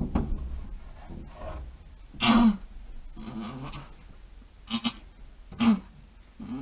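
Goat doe in labour bleating: three loud cries, a longer one about two seconds in with a slightly falling pitch, then two shorter ones about a second apart.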